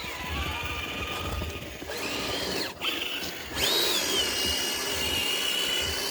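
Electric motor and gear drive of a radio-controlled crawler truck whining under throttle, the pitch gliding up and down with speed. It cuts out briefly just before the middle, comes back higher, then settles into a steady whine.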